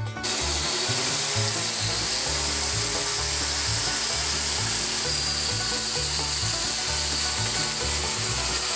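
Power sanding of an olive wood bowl spinning on a lathe, a rotary sanding disc held against the wood: a steady, even hiss that starts just after the beginning. Background music with a repeating bass line plays underneath.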